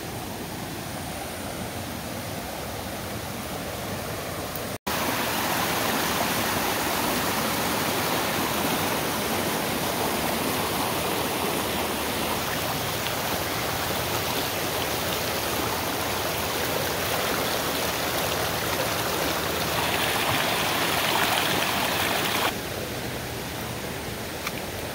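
Rain-swollen, muddy creek rushing over rocks in a steady, noisy flow. A brief dropout comes about five seconds in, after which the rush is louder, and it drops back near the end.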